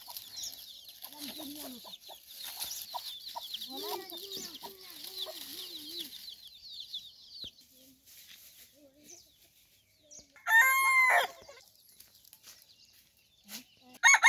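Pahadi aseel rooster crowing: one short crow about ten and a half seconds in, the loudest sound, and another starting right at the end. Before it, low repeated clucking comes twice over dense high chirping.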